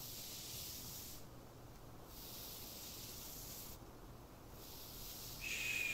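Hair being brushed: three long, soft brushing swishes, each about a second and a half, with short pauses between. A short, steady high tone comes in near the end.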